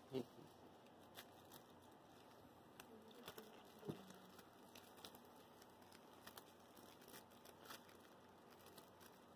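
Faint rustling of a bedsheet and a plush toy as a ferret wrestles with it, with scattered soft clicks and scuffs.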